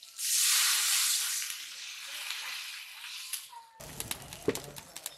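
Water poured into a hot kadai of oil-fried potatoes and spices hits the oil with a sudden loud sizzle, which fades over a couple of seconds. Near the end comes a run of sharp clicks and crackles.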